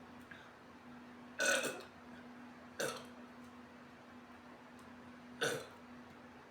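A woman burping three times in quick succession, the first burp the longest and loudest, the next two short. The burps come from drinking a carbonated energy drink.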